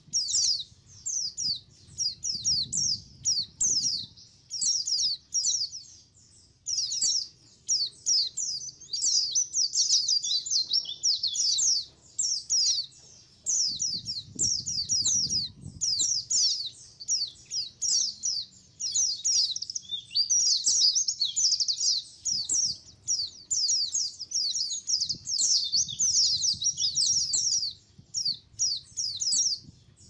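A flock of white-eyes (pleci) chirping together: many rapid, overlapping, high-pitched twittering calls, pausing briefly a few times.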